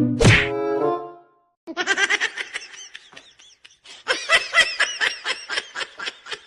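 A short loud sound at the very start, then after a brief gap a person laughing in rapid, repeated bursts that grow stronger about four seconds in.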